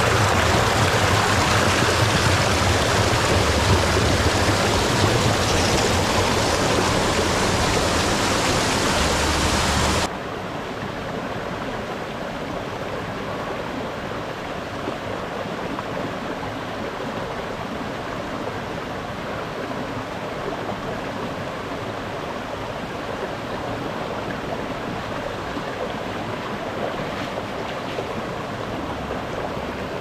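Rushing water of a hillside stream, a steady even rush. It drops suddenly to a softer level about a third of the way through.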